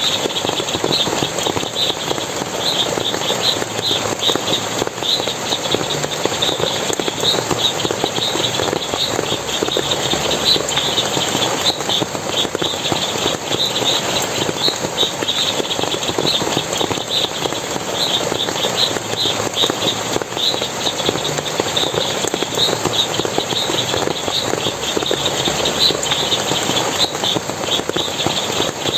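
Water splashing and rushing steadily in a forest stream, with many quick high chirps repeating throughout.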